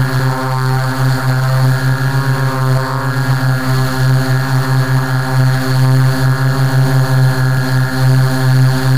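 Quadcopter's electric motors and propellers humming loudly at a steady pitch while it hovers, heard from on board the craft, with a slight pulsing in level.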